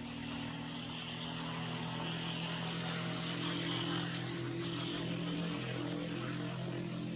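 Steady drone of an engine, a few low pitches that shift slightly, growing louder to about halfway and easing a little toward the end, over a high hiss.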